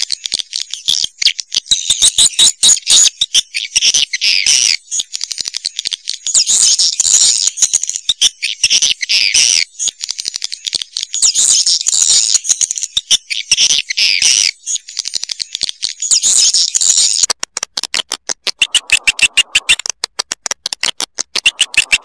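Swiftlet call recording of the kind played from tweeters to lure swiftlets into a bird house. Dense, high-pitched twittering chirps come in long runs with short breaks, and about 17 seconds in it changes to a fast, even train of clicks.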